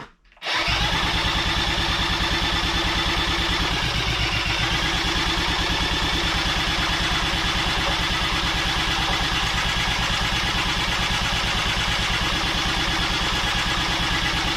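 Air-cooled single-cylinder four-stroke engine of a 1985 Honda ATC200X three-wheeler running steadily on fuel poured down its carburetor, its first run after sitting unused a long time. It starts about half a second in.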